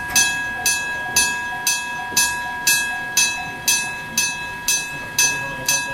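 Japanese railway level-crossing warning gong of the electric-gong (denshō) type, struck about twice a second, each stroke ringing out and fading before the next.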